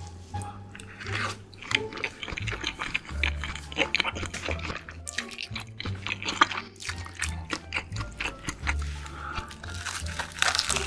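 Close-miked eating sounds: wet chewing, a noodle slurped through the lips and bites into a crisp fried piece, many short smacks and crunches, over background music with a steady bass line.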